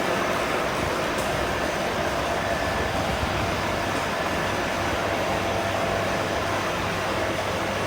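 Y Flex flexographic label printing press running steadily: an even mechanical whirr with a faint steady hum.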